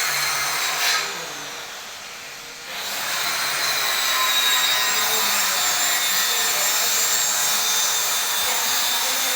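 Power tool running with a high whine as it cuts wood. It dies down about a second in and picks up again after about three seconds.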